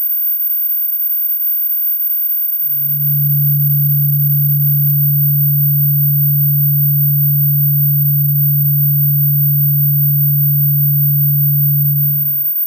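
Synthetic high-frequency dog-deterrent tone: one very high, thin, steady whistle that does not change. About two and a half seconds in, a loud, steady low hum joins it and stops just before the end.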